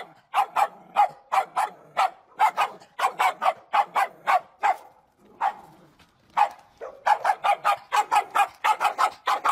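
Dog barking over and over in quick runs of short barks, about three a second, easing off briefly around five seconds in and then coming faster again near the end.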